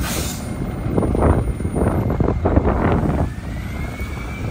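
Mack MRU rear-loader garbage truck's diesel engine pulling away and fading as it moves off, with a brief hiss right at the start.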